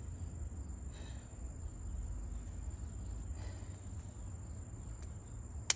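Insects trilling steadily in a high, even tone with a fast regular pulse. A single sharp click near the end.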